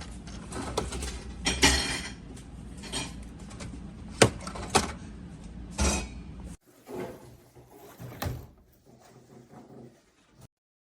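Clinks and knocks of drinks and plastic parts being handled in a plastic fridge drink organizer, with sharp knocks about two, four and six seconds in. Fainter knocks follow and stop shortly before the end.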